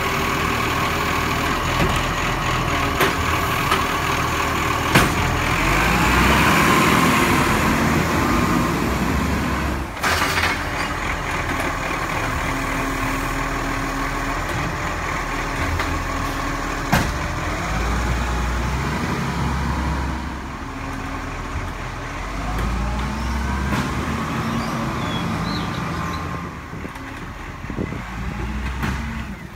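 ACCO side-loader garbage truck's diesel engine running and revving up and down as its hydraulic arm lifts and tips wheelie bins, with several sharp clanks from the arm and bins. The truck then pulls away.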